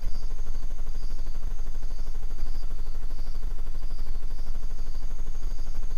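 Steady low rumble in the trail camera's microphone, with a high-pitched insect call pulsing about twice a second over a steady high hum.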